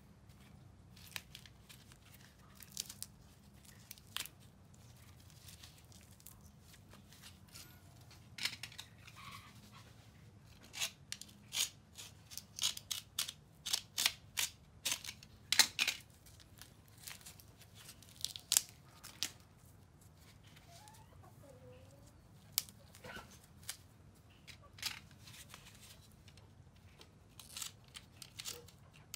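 Small snips cutting through old cord wrapping on a sword handle, with the cord tearing as it is pulled away. The snips come irregularly as sharp clicks, thickest through the middle and again near the end.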